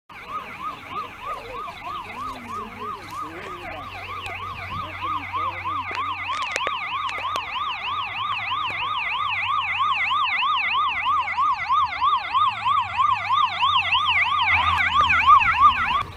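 Two vehicle sirens in a fast up-and-down yelp, one lower-pitched and one higher, sweeping a few times a second. They grow louder as they approach and cut off suddenly near the end.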